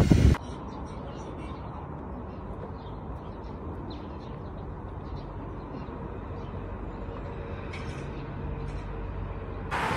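Steady low outdoor background rumble, like distant city traffic, with a few faint short bird chirps now and then. A loud rushing noise cuts off abruptly right at the start.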